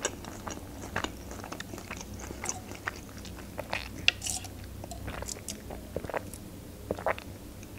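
Close mouth sounds of a woman sipping a drink through a plastic straw: short sips and swallows with small wet clicks scattered irregularly throughout.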